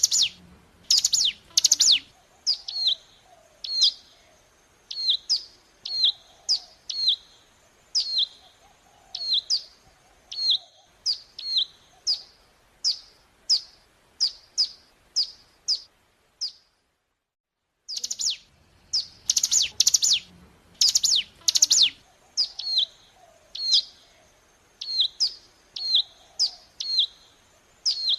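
Ciblek gunung, a mountain prinia, calling: a long run of sharp, high chirps about once a second, with quicker clusters of notes at the start and again just after a brief silent gap a little past the middle.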